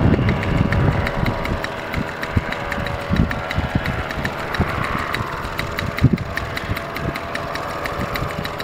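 Small paramotor engine running steadily, a constant hum with a fast, even ticking, mixed with wind rumbling on the microphone.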